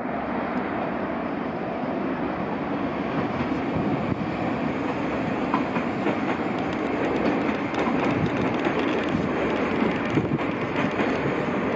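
NS VIRM double-deck electric train rolling past, its wheels and running gear making a steady rumble that slowly grows louder, with sharp clicks of wheels over rail joints in the second half.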